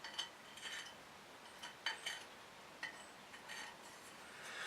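Light, irregular metallic scraping and clicking strokes from deburring freshly drilled holes in a tool-steel knife blank, about a dozen short strokes.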